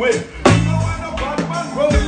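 Live reggae band playing through a stage PA, with bass, drums and keyboard, and a male vocalist's voice chanting over it into the microphone.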